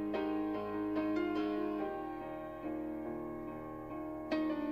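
Background piano music: sustained notes and chords, with a new chord struck about four seconds in.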